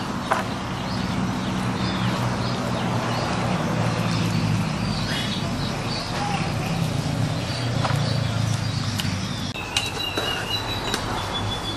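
Birds chirping in short, scattered calls over a steady background rush, with a few light clicks.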